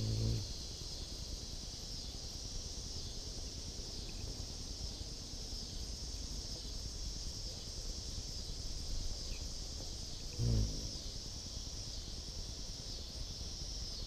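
Steady high-pitched chorus of insects, with a hummingbird's wings humming briefly at the very start and again, loudest, about ten and a half seconds in as it flies near the feeder.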